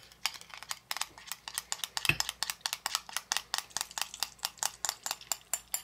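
A metal kitchen utensil ticking quickly and evenly against a dish, about six or seven light clicks a second.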